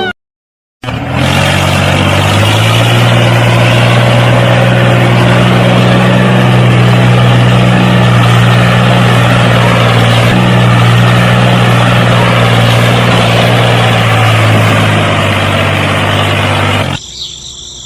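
Engine running steadily at a low, even pitch, starting about a second in and dropping away near the end.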